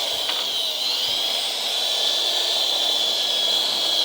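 Electric drill spinning a wire brush at full speed, a steady high whine over a hiss, scrubbing rust off a carburetor part.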